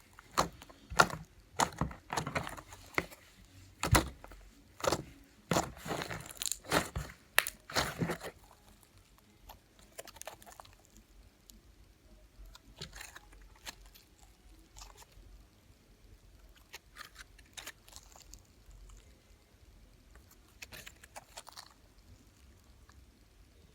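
Homemade slime being squeezed and poked by hand, giving sharp wet pops and crackles. The pops come thick and loud for about the first eight seconds, then turn sparse and quieter.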